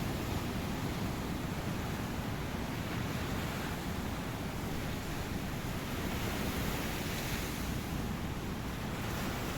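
Ocean surf breaking on a beach: a steady wash of wave noise that swells slightly near the end.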